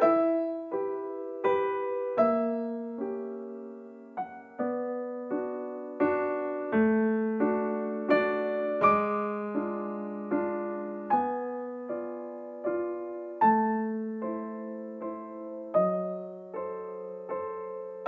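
Background music: slow, gentle piano-style keyboard melody, each note struck and then fading.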